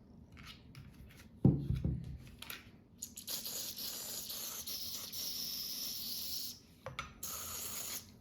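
Aerosol gun cleaner-lubricant spraying in a long hiss of about three and a half seconds, then a shorter burst near the end. A single thump comes about a second and a half in.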